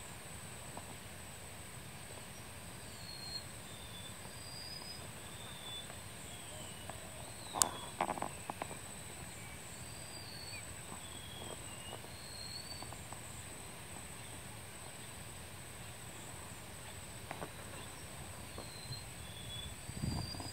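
Quiet mudflat ambience: a steady hiss under a thin, high, steady whine, with faint short whistled shorebird calls, rising or falling, every second or two. One sharp click about a third of the way in, and a few low knocks near the end.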